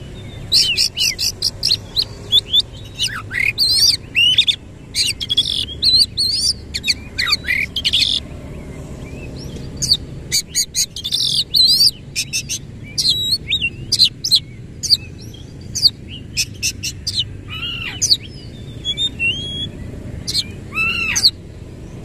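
Oriental magpie-robin in full song: long runs of rapid, varied whistles and chirps with quick pitch slides, broken by a short pause about eight seconds in.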